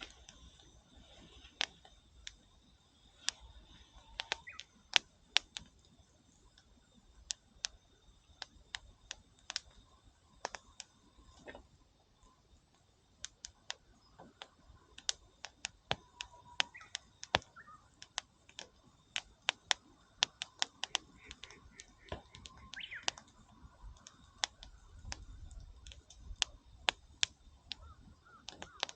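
Campfire wood crackling: sharp, irregular snaps and pops, some single and some in quick clusters, over a faint background.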